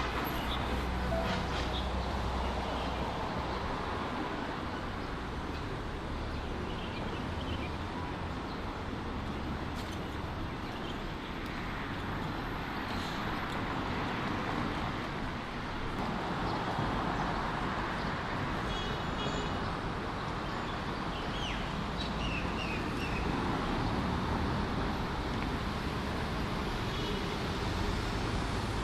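Continuous road traffic noise from vehicles on an elevated viaduct, a steady rush that swells and eases as vehicles pass.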